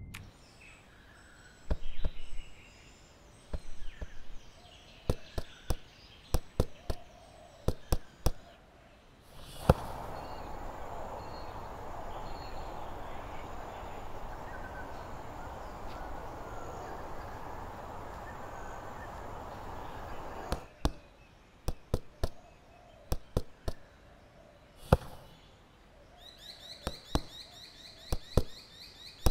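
Scattered sharp knocks, then about ten seconds of steady rushing water from a river in flood, which stops abruptly. More sharp knocks follow, ending with punches smacking into focus mitts while birds chirp.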